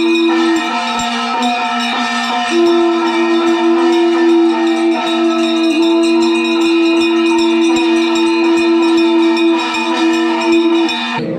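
Two conch shells (shankha) blown together in long held notes at two different pitches, sounded for a temple arati. The higher note breaks off about a second in and comes back a couple of seconds later, and both stop just before the end. A fast clatter of strikes runs underneath.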